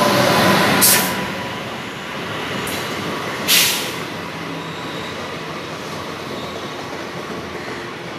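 Indian Railways WAP7 electric locomotive passing at speed, its steady whine fading within the first second, followed by a long rake of passenger coaches rolling by with a steady rumble and hiss of wheels on rail. Two short sharp bursts of noise stand out, about a second in and again about three and a half seconds in.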